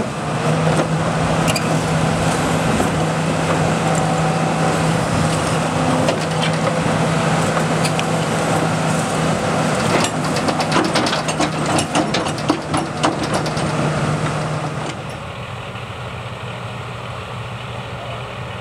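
Hitachi Zaxis 300 excavator's diesel engine working steadily under hydraulic load, with a run of sharp cracking and clattering about ten seconds in as the demolition shear works through material. About fifteen seconds in the engine drops to a quieter, lower running.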